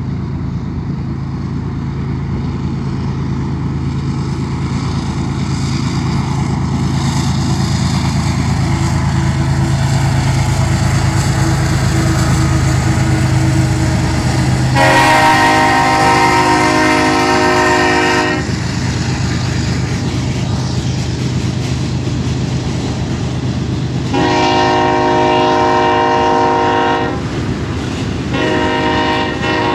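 Union Pacific diesel-electric locomotive approaching, its engine rumbling steadily and growing louder. Its air horn then sounds three long blasts: one about halfway through, one a little later, and one near the end, as the flatcars roll past.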